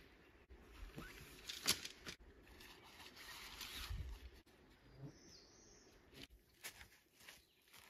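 Faint rustling of fabric and a few light clicks as a grey fabric bag is handled and rolled up, with a soft stretch of rustling midway. A short high bird chirp about five seconds in.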